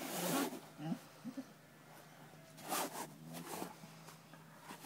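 Two dogs play-fighting and mouthing each other: a few short, rough growls and breathy bursts, with brief low grunts in between.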